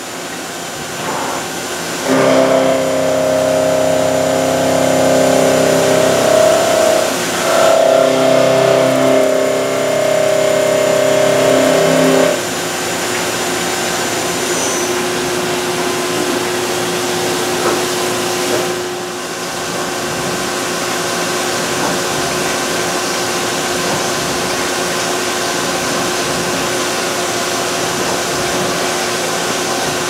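CNC vertical mill cutting under flood coolant: spray hiss under a steady whine of spindle and cutter with several held tones. The loudest cutting tones stop sharply about twelve seconds in, leaving a steadier single tone and the coolant.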